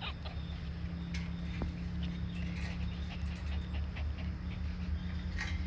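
A Pembroke Welsh corgi panting faintly close by, over a steady low hum.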